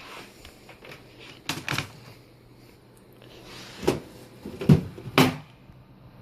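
A desktop PC case being handled and opened: a couple of light clicks, then three louder knocks and clacks of the case panel in the second half.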